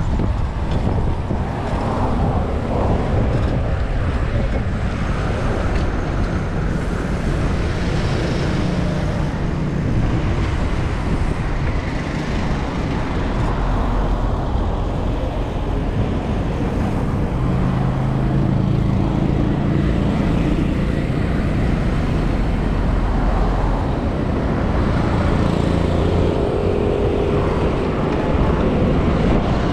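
Road traffic heard from a moving bicycle: a steady rumble of car engines and tyres, with vehicles passing close by.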